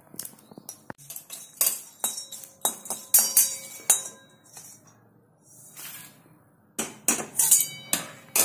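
A metal spatula scraping and clinking against a cast-iron kadhai as star anise is dry-roasted. The sharp scrapes and taps carry a light metallic ring, pause briefly past the middle, then start again.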